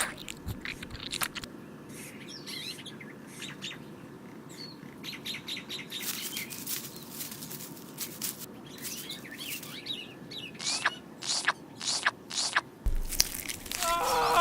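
Small birds chirping and twittering in short high calls over a steady background hiss. The calls come thicker and sharper near the end, and a pitched call starts just before it ends.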